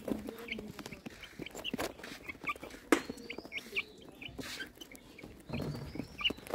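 A flock of white chickens clucking softly and giving many short high peeps as they feed, with scattered clicks and one sharp click about three seconds in.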